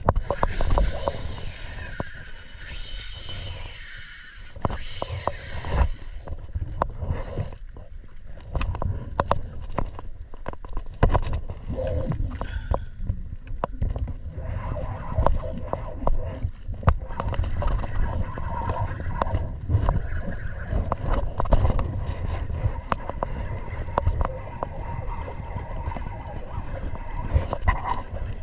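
Wind buffeting the microphone and water against a kayak's hull, with clicks and rattles of a fishing reel being cranked while a hooked fish is reeled in. A brighter hiss over the first six seconds or so gives way to lower, choppier rumble and clicking.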